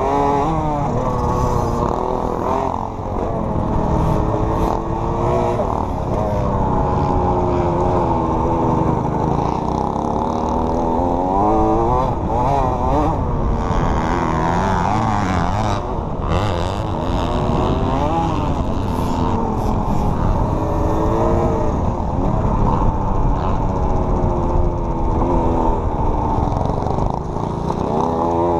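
KTM 65 two-stroke dirt bike engine being ridden hard, its pitch climbing and dropping every second or two as the throttle is opened and shut and the gears change.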